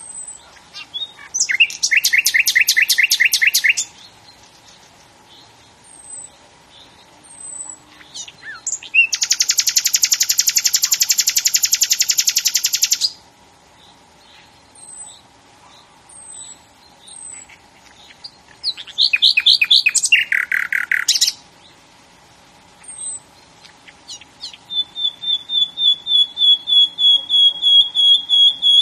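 A bird singing: four bouts of rapid trilled song, each two to four seconds long, with short high chip notes between them. The last bout is a run of quick repeated notes on one pitch that grows louder toward the end. A faint steady hum lies underneath.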